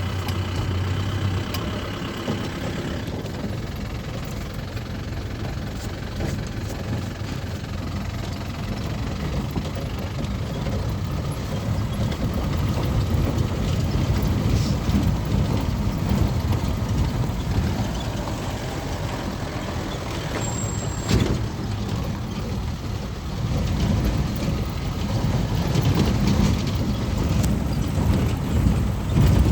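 Motor vehicle driving on a rough dirt track: a steady engine and road rumble with a few sharp knocks, louder over the second half.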